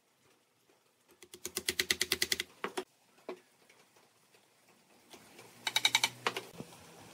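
Wooden mallet tapping on a pine frame to seat a part: a quick run of about ten knocks a second, a few single knocks, then a second quick run near the end.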